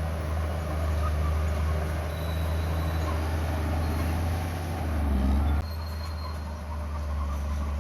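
Komatsu bulldozer's diesel engine running steadily with a deep low hum, swelling briefly about five seconds in before the sound changes abruptly.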